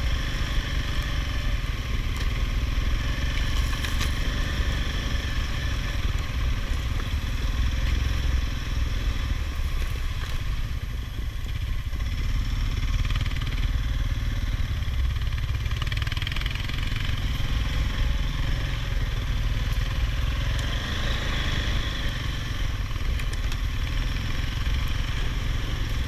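All-terrain vehicle engine running steadily with a continuous low rumble.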